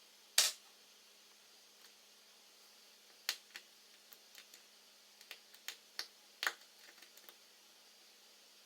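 Small sharp clicks and taps of hand tools and small phone parts being handled during iPhone 5 reassembly. One loud click comes about half a second in, then about a dozen lighter clicks follow over the next few seconds.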